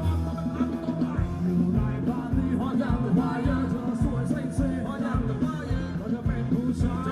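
Thai ramwong band music: a singer over electric instruments with a steady, driving drum beat.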